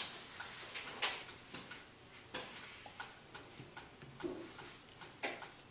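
Metal loop tool scraping out the inside of a soft clay spout: faint, irregular small clicks and short scrapes, about one or two a second.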